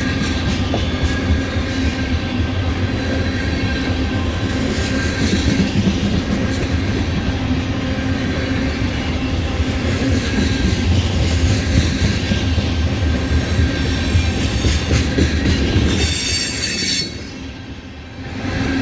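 A freight train of ethanol tank cars rolling past with a steady rumble, its wheels squealing in a high, steady whine. Near the end there is a brief hissing surge, and then the sound drops away for a moment before coming back.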